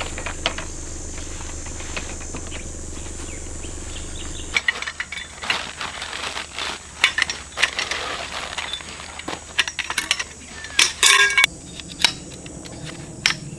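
A steady low hum that stops abruptly about four and a half seconds in, followed by a long run of irregular light clinks and knocks from small hard objects being handled, loudest about eleven seconds in.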